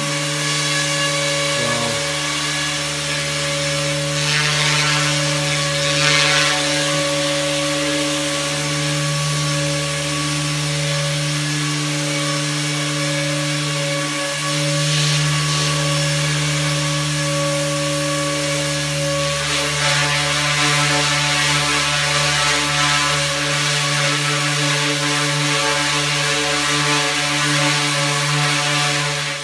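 SAB Goblin Fireball 280 electric RC helicopter in flight: a steady whine from its motor and spinning rotor blades over a constant hum. The rush of the rotors swells a few times as it manoeuvres.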